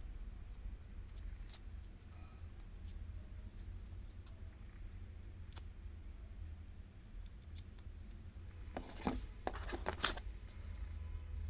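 Small crisp clicks and rustles of packaging being handled by hand, with a quick run of louder clicks and scrapes about nine seconds in, over a steady low hum.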